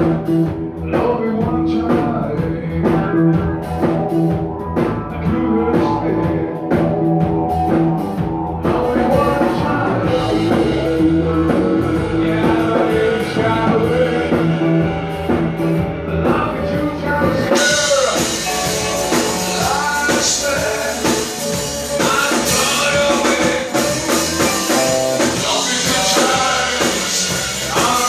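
Rock band playing live, with drums and guitar. The music grows fuller about eight seconds in and brighter again at about seventeen seconds.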